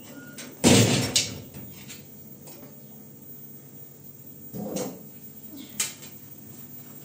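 Kitchen handling knocks: one loud thud a little over half a second in that dies away quickly, with a sharp knock just after it, then a softer knock later and a short click near the end, as a large aluminium pot and a metal tray are handled.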